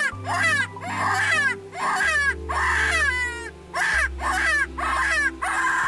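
Golden jackals howling: a rapid series of high, wailing yips, about two a second, each sliding down in pitch, over low sustained background music.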